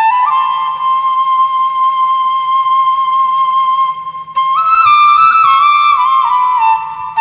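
Background music: a solo flute melody, one long held note for about four seconds, then a run of shorter notes stepping downward.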